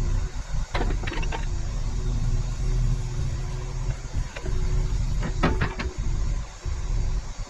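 John Deere 60G mini excavator running under load, a steady diesel rumble with a hydraulic whine that comes and goes. Sharp clanks about a second in and a cluster of them about five and a half seconds in.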